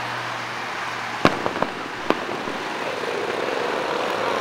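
Aerial fireworks shells bursting at a distance: one sharp bang about a second in, followed by three smaller pops over the next second, over a steady background hiss.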